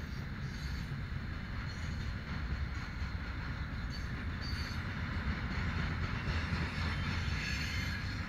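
Freight train tank cars rolling past close by: a steady low rumble of steel wheels on the rails, with a fainter hiss of wheel noise above it.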